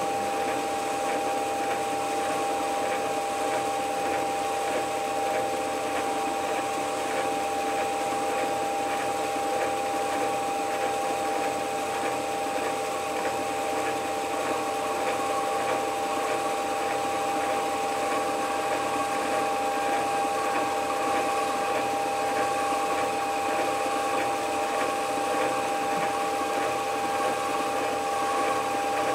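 Small metal lathe running steadily, a turning tool taking a light cut along a thin connecting rod to form its taper. The motor and gearing give a constant hum with several fixed tones.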